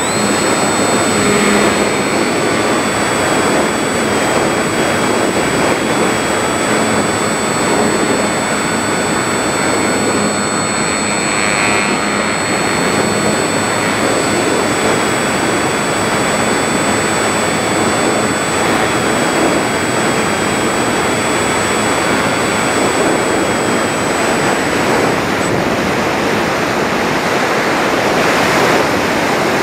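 Electric motor and propeller of a Volantex Phoenix 1600 motor-glider running under power, heard from a camera on the fuselage: a loud, steady whirr of airflow and propeller with a thin high whine. It switches on right at the start after quieter gliding, and the whine fades out about three quarters of the way through while the whirr carries on.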